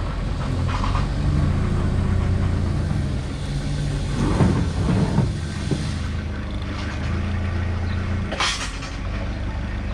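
Forklift engine running close by as the forklift drives up to the trailer, a steady low hum that shifts in pitch a little. A rattle comes about four to five seconds in, and a short hiss about eight and a half seconds in.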